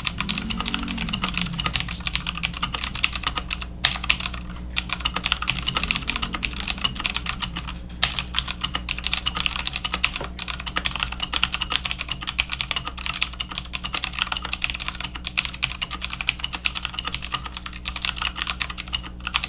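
Rapoo V500 Pro mechanical keyboard being typed on quickly and continuously, its clicky switches clattering key after key, with short pauses about four and eight seconds in.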